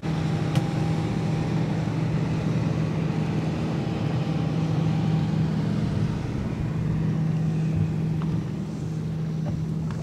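Mercruiser 350 MAG MPI V8 sterndrive engine running steadily with the boat under way, with a constant low hum and the rush of water and wind.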